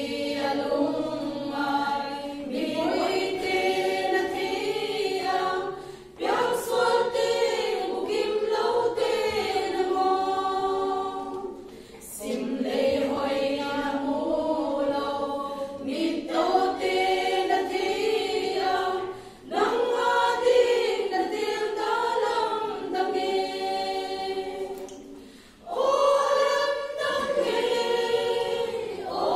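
A women's choir singing a hymn unaccompanied, in phrases of about six seconds with a short break for breath between each.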